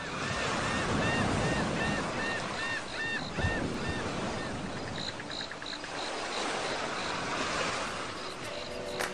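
Steady rushing noise of sea surf, with a run of short repeated chirps, about three a second, over the first few seconds and a few brief high tones around the middle.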